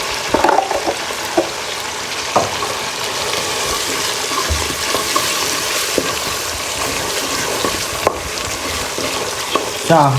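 Tomato paste with blended pepper and crayfish sizzling as it fries in hot oil in a pot, a steady hiss with a few sharp knocks of a spoon stirring.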